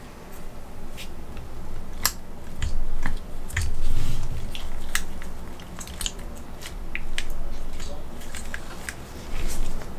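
Irregular clicks and ticks of a metal-frame mecha action figure's jointed parts as it is handled and posed, with low, muffled rubbing and bumps from the gloved hands gripping it.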